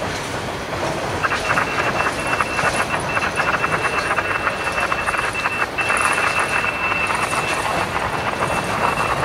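Freight train of covered hopper cars rolling slowly past, wheels rumbling and clicking on the rails. From about a second in, a steady high-pitched squeal joins, breaking off briefly once past the middle; it is typical of steel wheels squealing against the rail.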